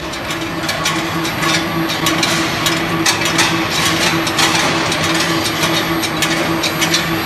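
Steel ball skew rolling mill running, hot steel bar being rolled into balls: a steady drive hum under a dense, irregular clatter of metal clicks and knocks.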